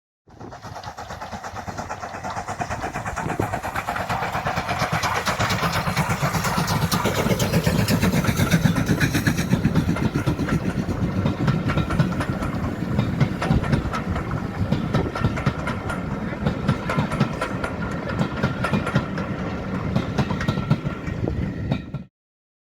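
A train running, a rumble with rapid clatter that builds over the first several seconds, holds steady, and then cuts off sharply near the end.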